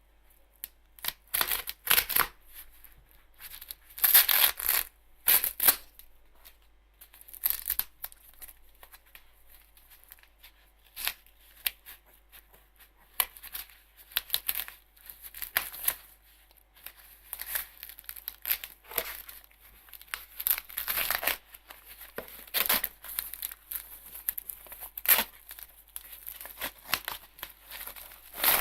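Headphone packaging being torn and crinkled open by hand, in irregular bursts of tearing and rustling.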